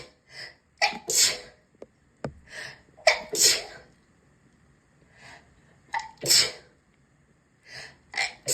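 A person sneezing repeatedly: three full sneezes about two to three seconds apart, each a short voiced 'ah' followed by a sharp, hissy burst, with softer breaths between them and another sneeze beginning right at the end.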